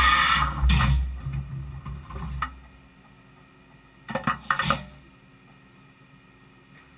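A loud rushing noise with a deep rumble close to the Fadal VMC5020A mill's spindle head, dying away over the first two and a half seconds. About four seconds in, a quick cluster of sharp air bursts and clunks as the spindle is worked by a gloved hand, typical of the drawbar releasing a tool holder.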